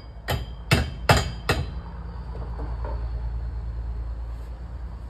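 Hammer driving nails into timber formwork: four sharp, ringing strikes about 0.4 s apart that stop about a second and a half in, followed by a steady low rumble.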